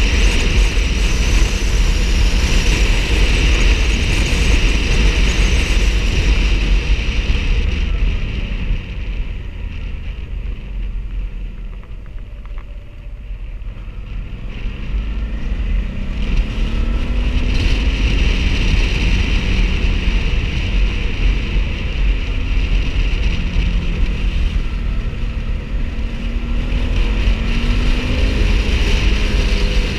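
A motorcycle being ridden, with heavy wind noise rumbling on the microphone over the engine. Around the middle it eases off and grows quieter. Then the engine pitch climbs several times as it speeds up again.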